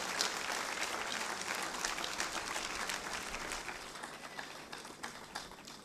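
Audience applauding, a dense run of clapping that thins out and dies away near the end.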